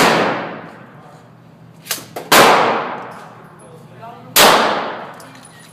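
Gunshots, each a sharp crack with a long echoing tail: one as it begins, a fainter crack about two seconds in, then two loud shots about two seconds apart.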